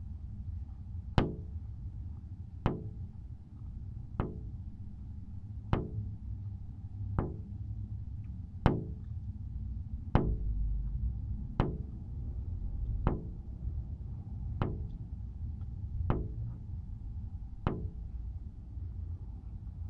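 Sharp knocks struck at a slow, even pace, about one every second and a half, twelve in all. Each has a short ringing tail, and a low steady rumble runs underneath.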